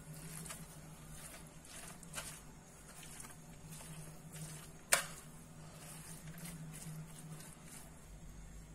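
Metal spoon stirring a raw rice, minced-meat, tomato and herb stuffing in a bowl: soft scratching, squishing strokes, with one sharp clink of the spoon against the bowl about five seconds in.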